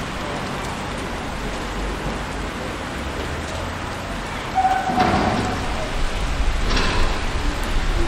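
City street traffic: a steady hiss and rumble of passing cars, with a short high tone and a sharp knock about four and a half to five seconds in, and another knock near seven seconds.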